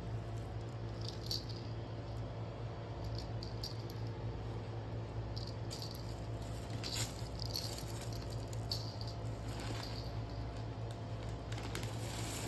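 Fabric cat tunnel rustling and crinkling in short, irregular bursts as a cat moves about inside it, over a steady low hum.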